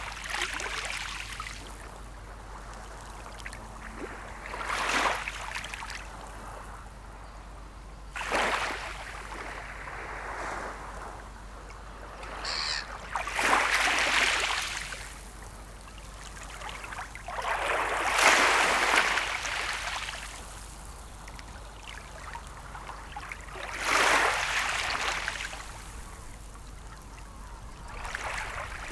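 Small sea waves breaking and washing onto the shore about every four to five seconds, each wave's rush of water building and then fading.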